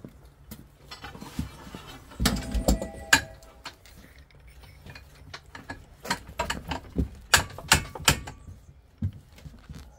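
Metal pipe clanking and knocking as it is handled and set into the chuck of a Ridgid 300 pipe threading machine. There is a cluster of knocks about two to three seconds in, then several sharp metal knocks between six and eight seconds; the machine's motor is not running.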